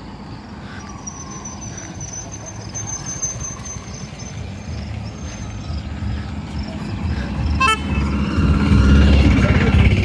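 An auto-rickshaw's engine drawing nearer and getting louder, loudest in the last two seconds as it passes, with a short horn toot about three-quarters of the way through.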